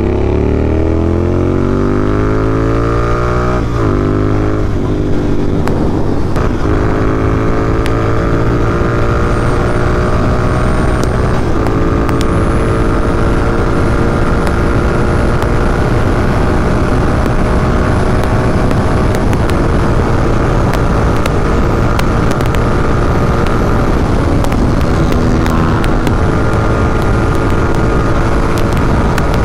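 Royal Enfield Continental GT 650's parallel-twin engine accelerating through the gears, its pitch climbing and dropping at upshifts about four and six seconds in. It then runs at a steady cruising speed, with a constant rush of wind over it.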